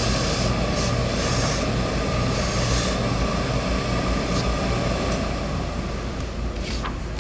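Hose-fed industrial steam iron giving short hisses of steam, several close together in the first three seconds and then two more spaced out, over a steady hum with a thin whine.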